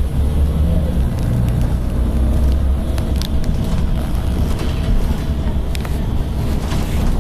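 Volvo B7TL double-decker bus's six-cylinder diesel engine running as the bus drives along, a steady low rumble heard from inside the saloon, with a few sharp clicks.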